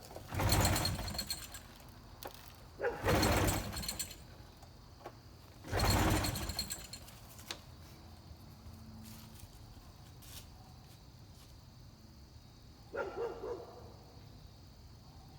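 Rotax 503 two-cylinder two-stroke engine being cranked three times, each attempt lasting about a second, without catching and running. A shorter, fainter sound follows near the end.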